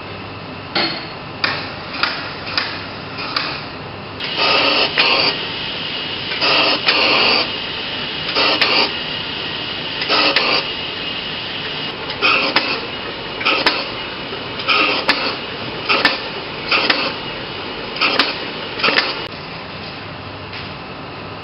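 OMNIMAX 70mm film projector being worked by hand: irregular mechanical clicks and clacks, a few of them longer clattering bursts, over a steady machine-room hum.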